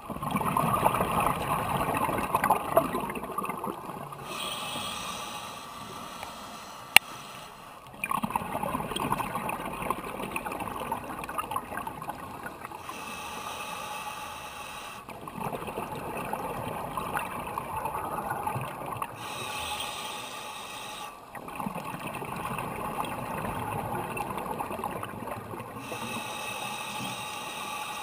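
Scuba diver breathing through a regulator, heard underwater: about four slow breaths, each a long stretch of bubbling, gurgling exhaled bubbles followed by a quieter hissing inhale. A single sharp click about seven seconds in.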